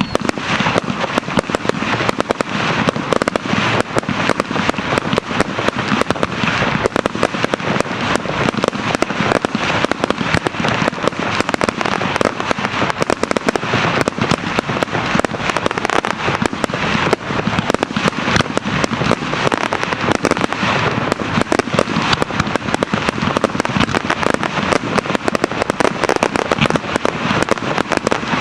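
Aerial fireworks display bursting without pause: a dense, fast crackle and popping of many small bursts, kept up steadily.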